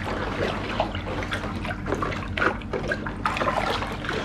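Spoon stirring water in a small bucket, the water sloshing and trickling as pH-minus granules are dissolved in it.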